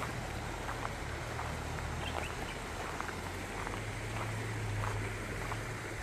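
Outdoor ambience: a low steady hum that swells a little past the middle, with scattered short, high clicks or chirps.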